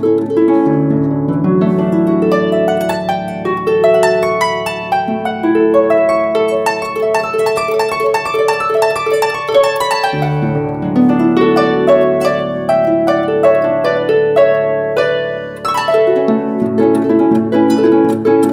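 Lever harp playing an instrumental passage without singing: a steady stream of plucked notes over held low bass notes, with the bass moving to a new note about halfway through.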